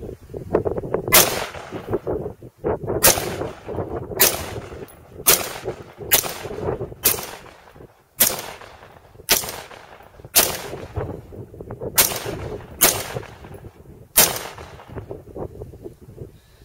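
Smith & Wesson M&P15 AR-15 rifle firing 5.56 mm M855 rounds in semi-automatic: about a dozen single shots at roughly one a second, each trailing off in a short echo.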